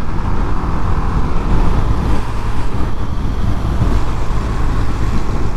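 Single-cylinder Suzuki motorcycle engine running steadily at cruising speed, mixed with wind and road noise.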